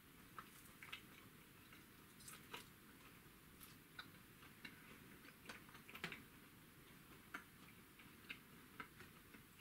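Near silence with faint, irregular small clicks from a man handling and chewing a thin slice of smoked-boiled pork knuckle.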